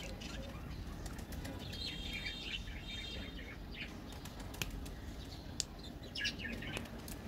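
Small birds chirping in the background, with a few sharp clicks about halfway through as a milk chocolate bar is snapped apart by hand.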